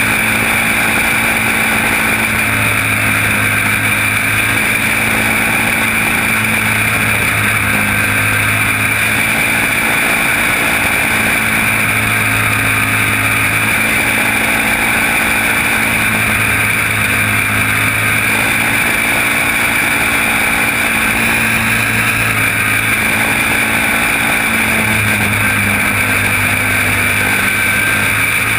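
Racing kart engine running hard, loud and continuous, heard from the driver's seat of a caged champ kart; a deep low note drops away and comes back every few seconds as the throttle is lifted and reapplied around the track.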